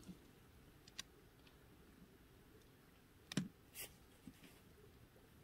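Near silence broken by a few faint, sharp clicks. The loudest, about three and a half seconds in, comes with a soft knock and is followed by a brief rustle.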